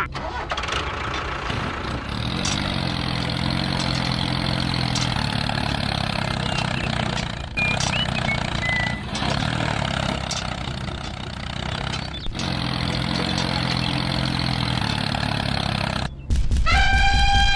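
Heavy vehicle engine running steadily, with a mechanical clatter over a low drone. Near the end it cuts off and a loud horn-like call starts, its pitch arching up and down.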